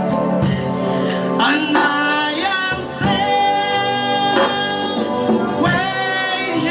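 Gospel choir worship singing with instrumental accompaniment, the voices holding long, sliding notes.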